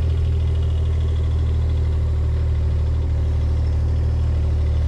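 An engine running at a steady idle, a constant low hum.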